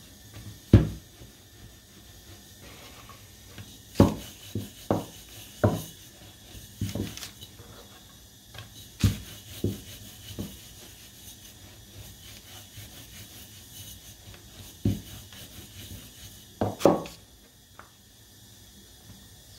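A bottle used as a rolling pin on dough on a wooden board: a dozen or so irregular knocks and thuds, some in quick pairs, with quiet rubbing between them.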